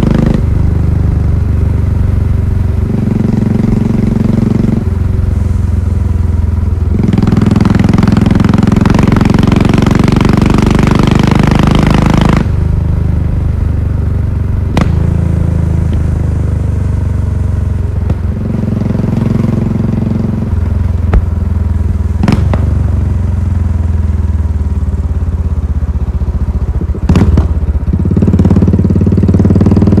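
Royal Enfield Classic 500's single-cylinder engine running under way, its note stepping up and down every couple of seconds as the throttle opens and closes. A hissing rush rises over it for several seconds in the middle, and there are a few sharp knocks in the second half.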